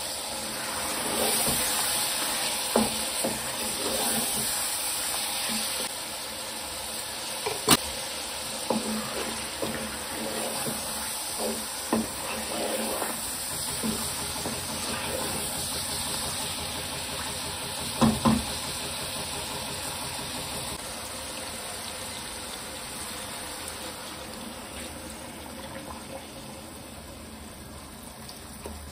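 Beef and tomato-onion masala sizzling in a nonstick wok as a wooden spoon stirs it, the spoon knocking against the pan now and then; the sizzle slowly dies down. Near the end, water is poured into the pot.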